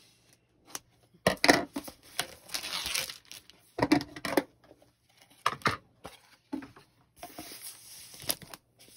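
Plastic wrap being torn and pulled off a cardboard box: a string of irregular crinkling rips and rustles with short pauses between them.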